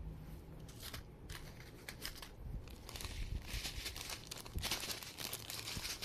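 Clear plastic zip bag crinkling and paper silica gel sachets rustling as they are handled and tipped out, in irregular crackles that get busier about halfway through.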